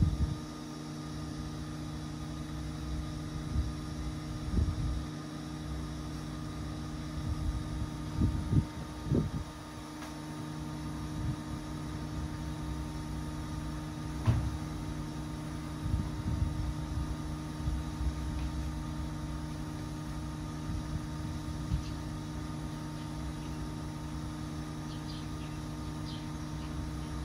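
Steady mechanical hum of several held tones, with a few low thumps, the loudest about eight and nine seconds in, and a single sharp click about halfway through.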